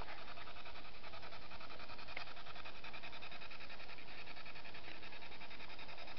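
Steady chorus of night insects: a fast, even, pulsing trill of chirps that goes on without a break.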